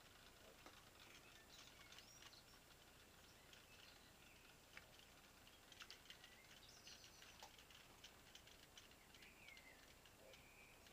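Near silence: faint room tone with scattered small clicks and a few brief, high chirp-like sounds.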